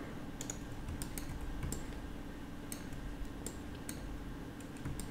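Faint, scattered clicks of a computer keyboard and mouse being operated, over a low steady hum.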